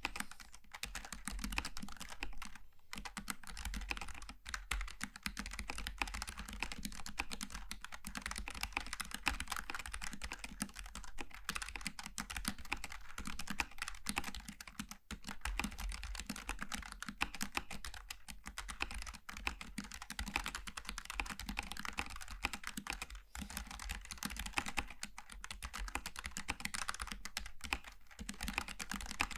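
Continuous fast typing on a Logitech G915 TKL low-profile mechanical keyboard with GL Tactile switches: a dense stream of key clicks, broken by brief pauses about three seconds in and about halfway through.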